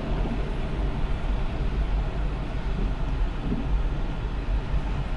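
Car driving along a road: steady engine and tyre noise.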